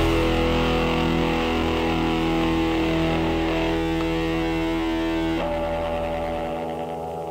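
Closing music: a distorted electric guitar chord left ringing and slowly fading, then moving to another held chord about five seconds in.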